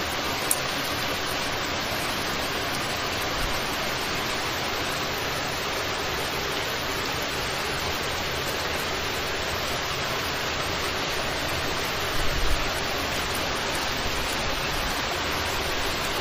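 Heavy downpour: a steady, even hiss of hard rain with wind. A few brief low thumps come about 12 seconds in.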